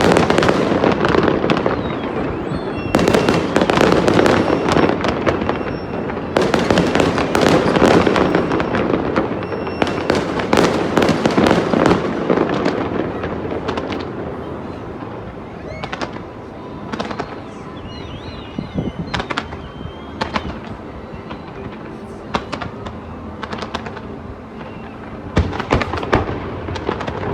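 Fireworks display: a dense run of bangs and crackling that thins to scattered, quieter pops about halfway, then picks up again near the end.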